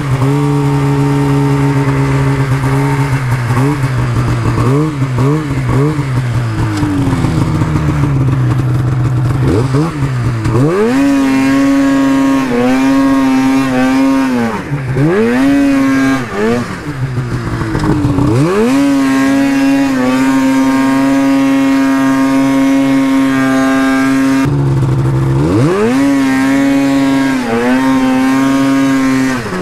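Polaris Pro RMK 800 snowmobile's modified two-stroke engine with an SLP exhaust can, revving under throttle. At first the revs rise and fall quickly, then the engine climbs sharply and holds steady at high revs for long stretches while the sled is up on a wheelie, dropping off and climbing back up several times.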